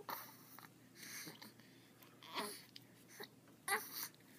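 Baby babbling in short separate sounds, some with quick falling pitch, about one a second.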